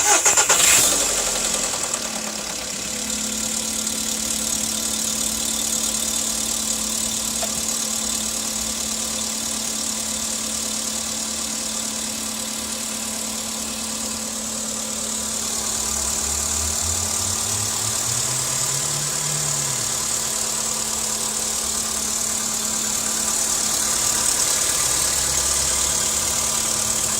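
VW CFNA 1.6-litre four-cylinder petrol engine starting, with a knock lasting about a second and a half right after start-up, then idling steadily. The knock remains even after the pistons were replaced, though it now sounds different.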